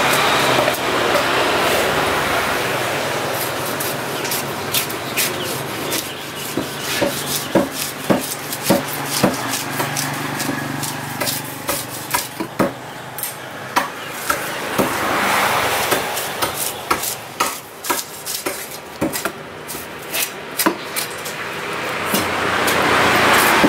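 A large knife chopping and cutting through a giant trevally on a wooden log chopping block: a long run of irregular sharp knocks as the blade strikes through into the wood, with scraping between them. A rushing background noise swells and fades a few times behind it.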